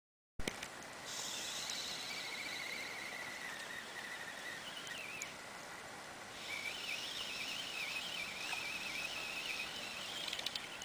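High, thin whistling that wavers up and down in pitch, in two long stretches with a short break between them, over a steady background hiss.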